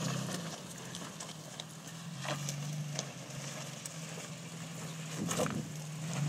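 Toyota FJ Cruiser's 4.0-litre V6 running at low revs as it crawls slowly over rocks, with a few short crunches a couple of seconds in and again near the end.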